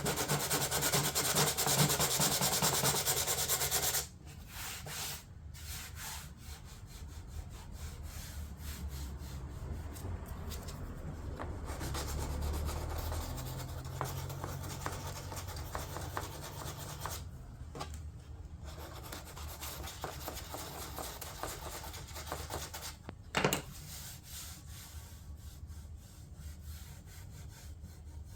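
Sanding of hardened filler and fiberglass on a door panel, loud and continuous for about the first four seconds and then stopping suddenly, followed by softer, steady rubbing strokes. A brief knock sounds near the end.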